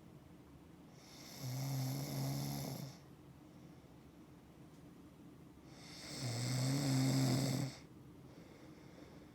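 Snoring in sleep: two long, low, buzzing snores about five seconds apart, each lasting about two seconds.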